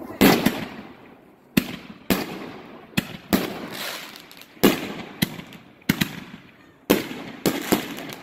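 Tannerite 24-shot slow-fused artillery shell fireworks going off in quick succession. There are about a dozen sharp bangs at uneven intervals, each trailing off in a short echo.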